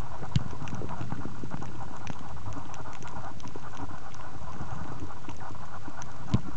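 Muffled underwater noise picked up by a compact camera sealed in a soft plastic waterproof pouch: an irregular patter of small clicks and knocks over a low rumble, with a sharper knock about half a second in and another near the end.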